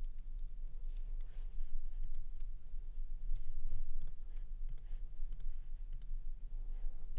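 Computer mouse clicks, irregular and spaced out, over a steady low electrical hum.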